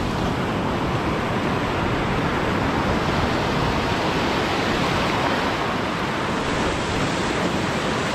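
Ocean surf breaking and washing through the shallows: a steady, even rush of water.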